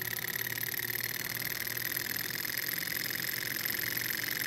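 Small two-cylinder Stirling hot-air engine running steadily, its pistons, flywheel and belt-driven generator making a fast, even mechanical whir.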